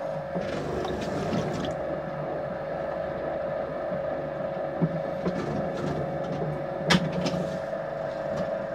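Electric potter's wheel running with a steady hum while wet hands rub and smooth the clay plate turning on it. There is a single sharp click about seven seconds in.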